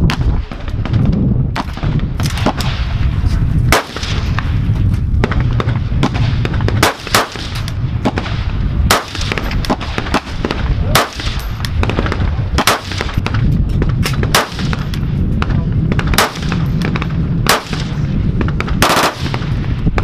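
CZ BREN 2 assault rifle gunfire on a range: many shots at irregular spacing, their echoes running together into a continuous rumble, with a quick cluster of shots near the end.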